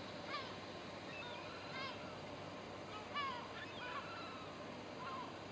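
Birds calling outdoors: a series of short, harsh calls, about one a second, over a steady background hum of wind and distant rumble.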